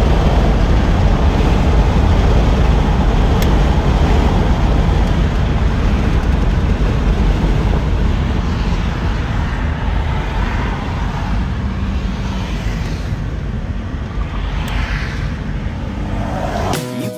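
1984 Chevrolet El Camino SS under way at road speed, heard from inside the cabin: a steady rumble of engine, tyre and wind noise, easing slightly over the second half.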